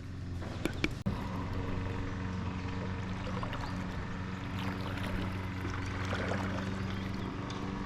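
Water trickling and lapping around a kayak, over a steady low hum, with a few light clicks and knocks in the first second.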